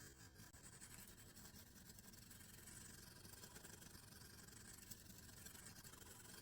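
Faint scratching of a Lansky medium diamond stone drawn along a knife's edge in slow, repeated sharpening strokes.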